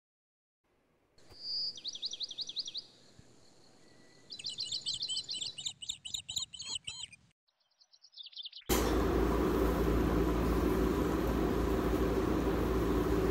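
A songbird chirping in two quick trills of rapidly repeated sweeping notes, with a short high chirp after them. About two-thirds of the way in, a louder steady hiss takes over and cuts off abruptly at the end.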